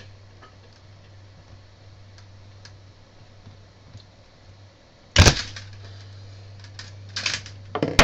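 A few sharp clicks and knocks over a steady low hum: one loud click about five seconds in, then two quick clusters of clicks near the end.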